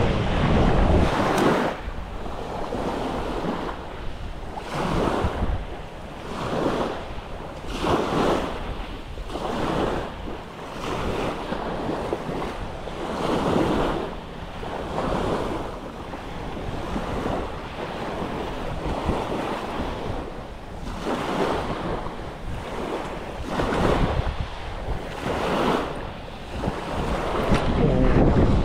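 Small, choppy waves breaking and washing up a pebble beach, one swell of surf about every second or so, with wind buffeting the microphone.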